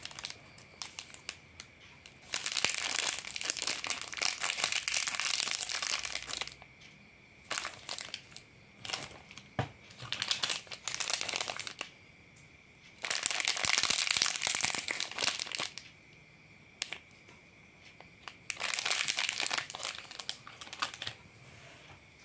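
Plastic snack packets crinkling as they are handled, in about six bursts of one to three seconds with short pauses between.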